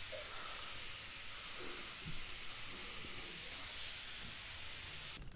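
A steady high hiss, cutting off abruptly near the end.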